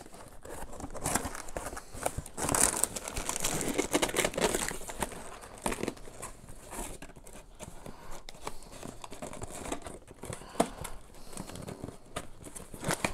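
Plastic bags of building bricks crinkling and rustling inside a cardboard box as it is handled and its flaps are folded shut, with scattered sharp clicks. The rustling is densest in the first few seconds and turns to sparser clicks and scrapes after that.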